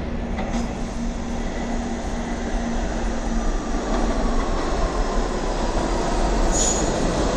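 New York City subway train approaching the platform through the tunnel: a steady rumble of wheels on rails that grows gradually louder as it nears.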